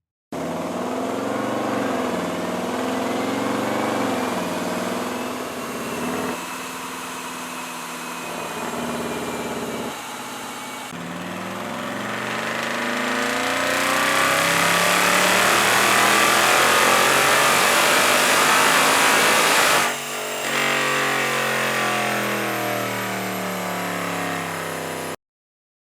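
Hyundai Equus VS500's V8 engine under load on a Dynojet chassis dyno. It starts with the pitch rising and falling at part throttle, then makes a long rising full-throttle pull to its loudest point. The pitch drops sharply as the throttle is lifted, and the engine runs down until it cuts off near the end.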